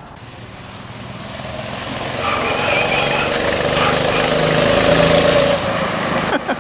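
Small gasoline engine of a ride-on vehicle driving up, growing steadily louder as it approaches, passing closest about five seconds in, then dropping away.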